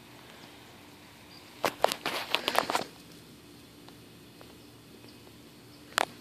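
Footsteps in grass and dry leaves: a short run of crackling rustles about two seconds in, then a single sharp click near the end.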